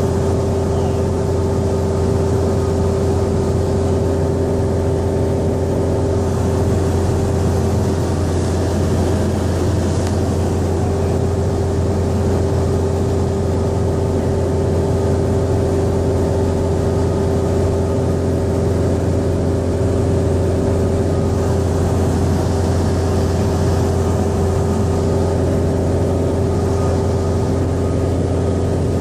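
Grumman single-engine light plane's piston engine and propeller droning steadily at cruise, heard inside the cabin. It is loud, with a deep hum and a tone whose pitch never changes.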